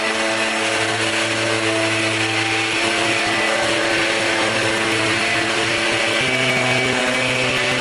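Handheld electric sander running steadily while sanding cedar with 150 or 180 grit, a motor hum under a hiss of abrasive on wood. Its note shifts slightly about six seconds in.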